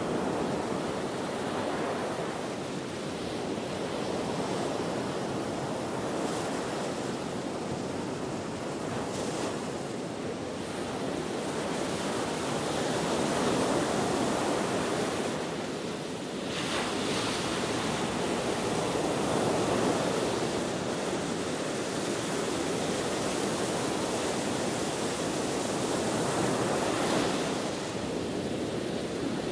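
Ocean waves breaking and washing on the shore in steady wind, the surf swelling and easing every several seconds, with wind buffeting the microphone.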